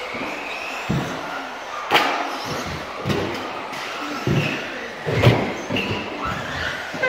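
Electric 1/10-scale RC buggies racing: four sharp knocks and thuds as the cars land from jumps and hit the track's kerbs, the loudest about five seconds in.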